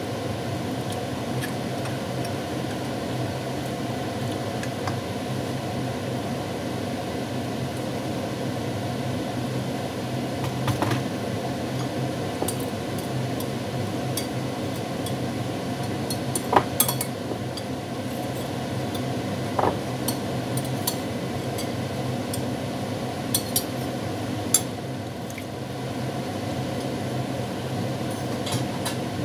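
Dishes and a glass bowl clinking at a kitchen sink, with scattered sharp clinks, the strongest a little past halfway and near the end, over a steady low hum and hiss.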